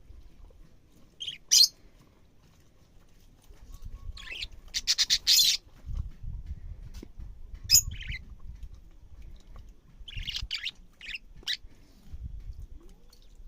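Budgerigar giving short, high chirps and squawks in scattered bursts, with a quick run of them around four to five seconds in and another cluster near ten to eleven seconds.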